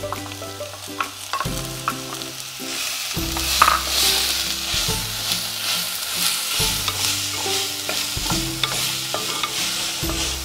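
Freshly added diced onions sizzling in hot oil, stirred and scraped with a wooden spoon; the sizzle grows louder about three seconds in.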